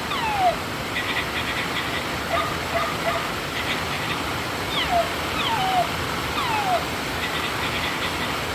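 Battery-powered toy puppy playing its electronic yips and whimpers: short yelps that fall sharply in pitch, about every second, with short chirpy bursts between them. The toy is working again on fresh batteries. Under it runs a steady hiss of rain on a metal roof.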